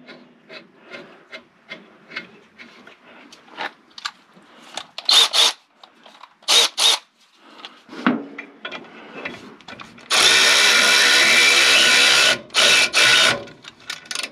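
A power tool runs the front brake caliper bolts of an M1009 CUCV Blazer home. First come light clinks of tools and parts and a couple of short bursts. About ten seconds in the tool runs steadily for two seconds, then gives two short blips to snug the bolts.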